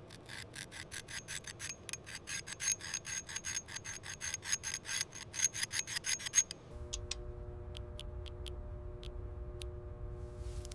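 Fast rasping strokes of a hand tool, filing or sanding, about five a second and growing louder. About two-thirds of the way through they stop and give way to a low steady hum with a few sharp ticks.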